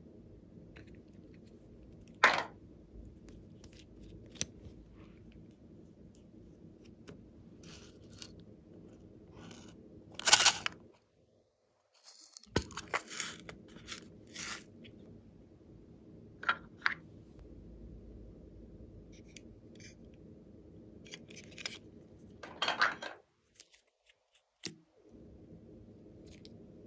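Small plastic containers being handled over a glass bowl of slime, with sequins and foam beads shaken out of a plastic box: a scattered series of short crackles, clicks and rattles, a few of them sharply louder, over a steady low hum.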